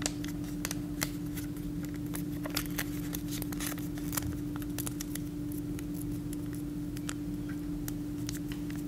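Sheet of origami paper crackling and rustling in the hands as it is folded and creased, in many small irregular crackles over a steady low hum.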